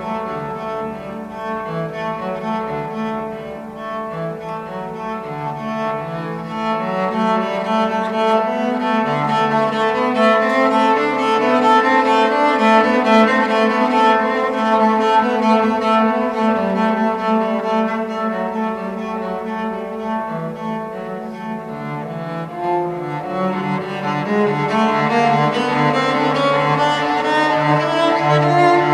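A cello played with the bow, unaccompanied, in a continuous flowing line of notes. It swells louder in the middle, eases off, and rises again near the end.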